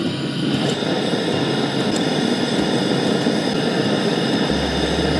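Propane burner of a Coleman two-burner camp stove running on high under a small stainless pot of water at a rolling boil: a steady rushing noise with bubbling.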